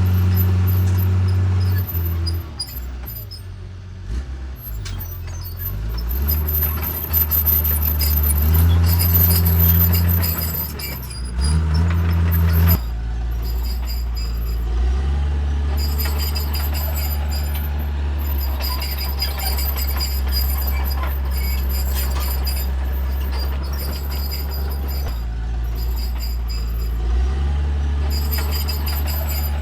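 Diesel engine of a Caterpillar D3C bulldozer working under load. For the first dozen seconds it revs up and down in steps, then runs steadily. A thin high tone comes and goes above the engine.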